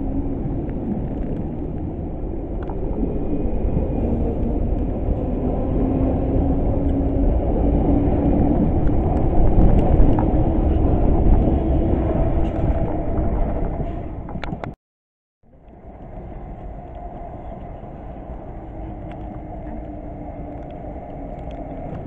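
London Underground 1973 stock Piccadilly line train pulling away alongside the platform: a loud rumble of wheels on rail with a humming tone that rises in pitch as it speeds up, loudest about ten seconds in. After an abrupt cut, a quieter steady rumble follows as another train approaches from down the line.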